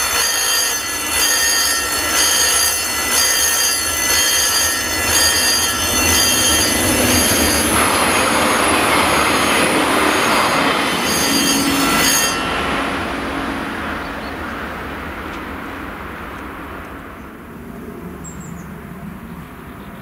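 Level-crossing warning bell ringing, a steady pulsing high ring, while a train passes with a rising rush about eight to twelve seconds in. About twelve seconds in the bell cuts off suddenly and the train's sound fades away.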